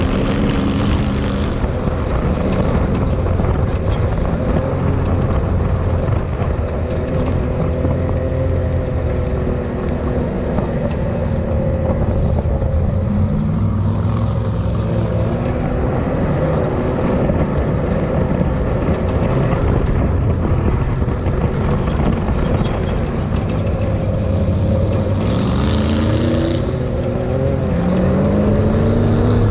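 Off-road buggy's engine running hard while driving across sand dunes, a dense low drone. Near the end it revs up several times in quick succession, its pitch climbing each time.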